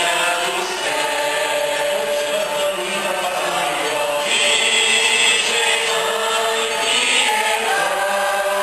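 Choir and congregation singing a hymn together, in long held notes.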